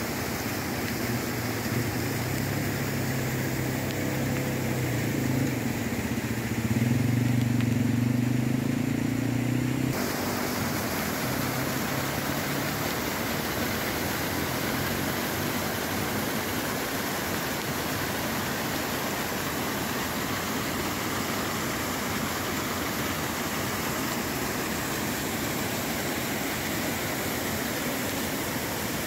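Brown floodwater rushing over and cascading off the broken edge of a washed-out asphalt road, a steady noise of fast water. For the first ten seconds or so a vehicle engine hums underneath it, getting louder before it cuts off abruptly.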